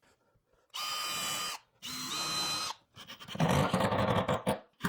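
Cordless drill running into the wood of a 2x4 frame joint in two short bursts of about a second each, then a longer, rougher, louder run in the last couple of seconds.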